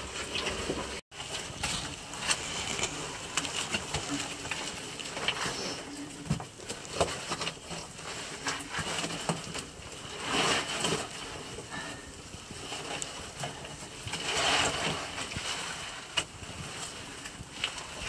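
A caver crawling out of a tight squeeze: a muddy oversuit and boots scraping and rustling against rock and mud, with scattered small knocks and two longer scrapes past the middle.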